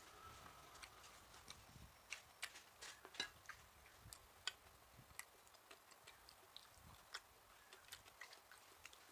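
Faint eating sounds: chewing with small wet mouth clicks and smacks, and fingers picking food off a plate, heard as scattered, irregular ticks.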